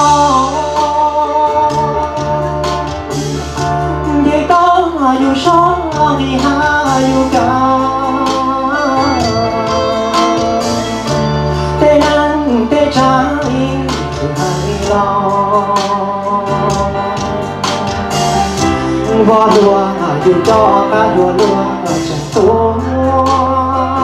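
A man singing a song into a handheld microphone, amplified over backing music with a steady bass line and a regular beat.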